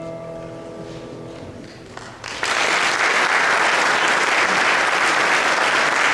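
The last held notes of the music ring away, then audience applause breaks out about two seconds in and keeps going.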